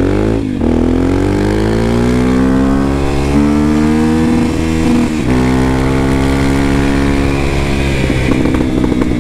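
Honda XR250 Tornado's single-cylinder four-stroke engine pulling the bike up through the gears, its note climbing steadily in each gear. It drops back at a gear change about half a second in and again about five seconds in.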